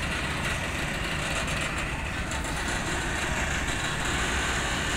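Heavy-haul truck diesel engines running steadily, a constant low rumble.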